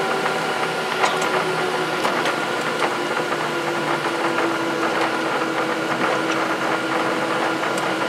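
Boeing 737-700's CFM56-7B jet engines at taxi idle, heard inside the cabin: a steady hum and whine, with one tone slowly sinking a little in pitch, plus a few faint rattles.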